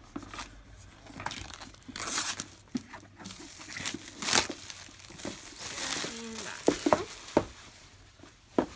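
Plastic shrink wrap being torn and crinkled off a cardboard board-game box, in irregular rustling bursts, with a few short sharp taps of hands and box against the table in the second half.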